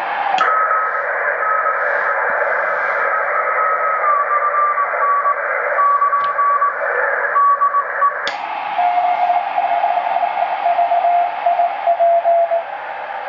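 Morse code (CW) signal on the 80-metre amateur band coming from a communications receiver's speaker: a keyed beat-note tone of dots and dashes over steady band hiss. The tone slides a little lower about four seconds in; a sharp click comes about eight seconds in, after which the hiss is wider and the keyed tone is lower in pitch.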